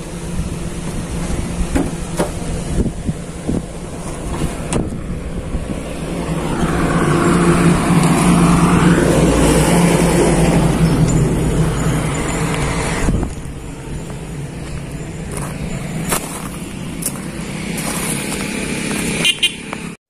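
Roadside traffic: a steady motor-vehicle hum, with a vehicle passing close by that swells up about a third of the way in, holds for several seconds and then falls away.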